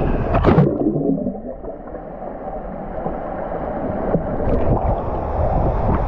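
Water heard through a submerged action camera's microphone. A brief rush of water as it goes under about half a second in, then muffled gurgling and a low rumble of churning water.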